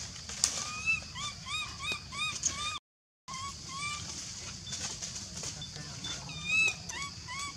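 Baby macaque crying: a run of short, high calls that rise and fall in pitch, about three a second. The sound cuts out for half a second about three seconds in, and a louder, longer call comes near the end.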